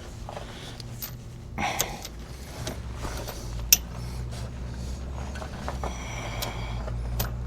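Light clicks, knocks and rustles of hose parts being handled, with one sharp click about three and a half seconds in, over a steady low hum.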